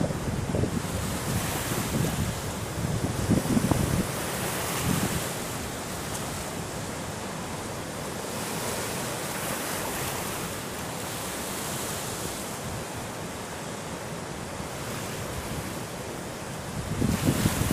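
Rushing of the Orb river in full flood, fast muddy water running high over its banks: a steady, even rush. Wind buffets the microphone during the first few seconds and again near the end.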